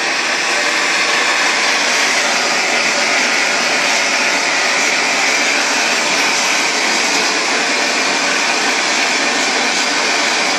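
Hand-held LPG gas torch burning with a steady hiss, its big blue flame heating a copper boiler toward red heat for silver soldering.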